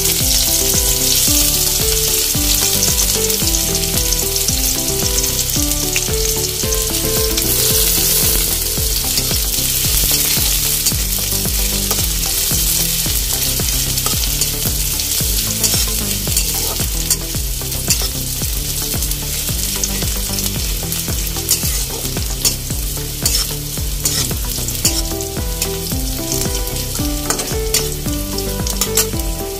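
Sliced onions frying in hot sunflower oil in a wok, with a steady sizzle, stirred with a metal spatula. From about halfway on, sharp clicks and scrapes come more and more often as the spatula strikes the pan.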